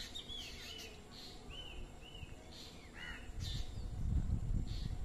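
Birds calling: a string of short, arching chirps and, about once a second, harsh scratchy calls. A low rumble joins in about three seconds in.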